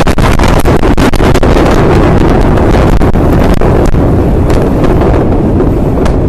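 Aftermath of a huge ammonium nitrate explosion: the blast's loud, distorted roar and rumble overloading the microphone, with constant crackling, easing slightly near the end.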